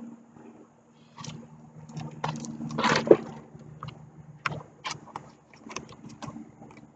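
Close handling noises: a string of short clicks, taps and rustles, loudest about three seconds in, over a steady low motor hum in the distance.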